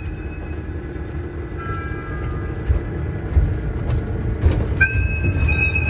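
Ride-on mini electric train running on its track: a steady low rumble with a few knocks from the wheels on the rails. A steady high whine dies away within the first second and comes back near the end.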